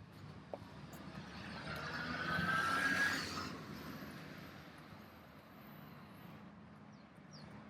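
A vehicle passes close by on the street, its tyre and engine noise swelling to loudest about three seconds in, with a faint rising whine, then fading away.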